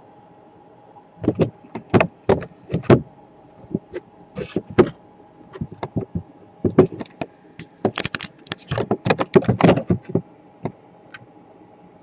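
Irregular clicks, knocks and clatter from tools and parts being handled on an electronics repair bench, thickest near the end, over a faint steady equipment hum.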